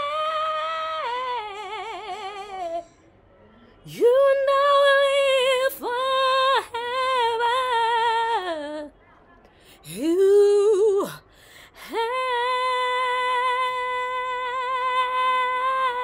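A woman singing alone without accompaniment: long held notes with no clear words, the first wavering, in several phrases broken by short pauses. Near the end she holds one steady note for about five seconds.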